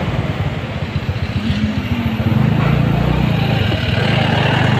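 A small two-wheeler's engine running at low road speed in traffic, its low rapid firing pulse swelling louder about halfway through as it picks up speed.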